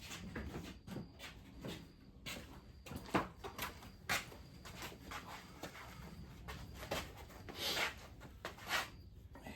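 Scattered metal clunks and knocks as a crankshaft is handled and lowered into the engine block onto its main bearings, with a short rustling scrape just before the end.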